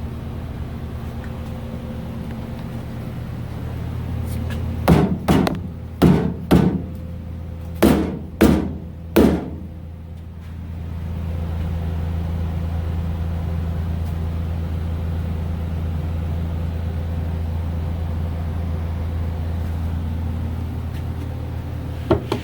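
About eight sharp hammer-like knocks in quick, uneven succession about five seconds in, over a steady low hum.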